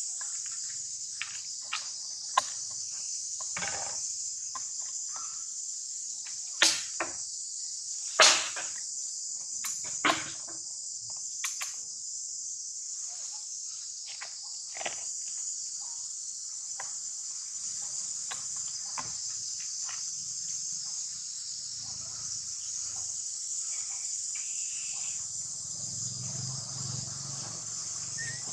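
Steady high-pitched drone of insects, with a few sharp clicks over it, the loudest a little before 7 s, a little after 8 s and about 10 s in.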